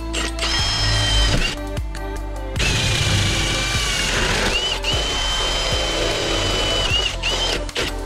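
Cordless drill spinning a hole saw through a door to bore the deadbolt hole, the motor whining in two runs, a short one near the start and a long one from about a third of the way in, its pitch sagging briefly as it loads up. Background music plays underneath.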